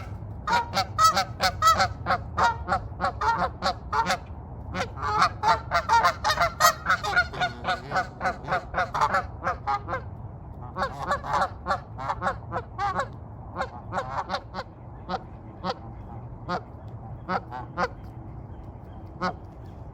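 A flock of Canada geese honking. Many short, overlapping honks come in quick succession for the first half, then thin out to scattered single honks that grow fainter toward the end.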